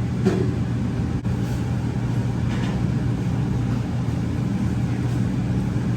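A steady low hum that stays level throughout, with faint voices in the background.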